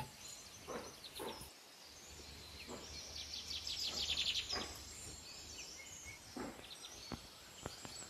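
Birds chirping, with a quick chattering trill of high notes from about three seconds in to just past the middle. A few soft knocks and scuffs are scattered through.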